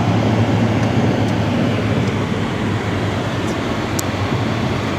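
Steady road and engine noise heard inside a moving Mazda3's cabin, a low hum under the hiss of tyres on a snowy road, with a faint click about four seconds in.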